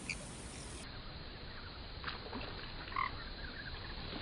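A frog croaking a few short times over a faint steady outdoor background; the clearest call comes about three seconds in.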